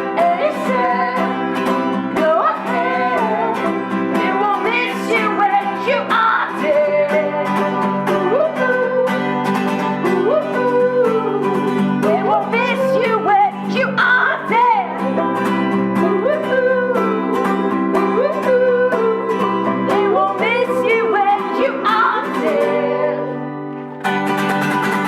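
Acoustic folk band playing: strummed acoustic guitar and picked banjo with voices singing a wordless melody over them. The music thins and dips briefly about a second before the end.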